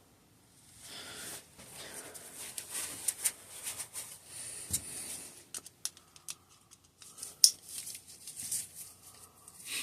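Hydraulic disc brake caliper parts and small tools being handled on a workbench during a teardown: irregular scraping and rustling with many small, sharp clicks, the sharpest about two-thirds of the way through.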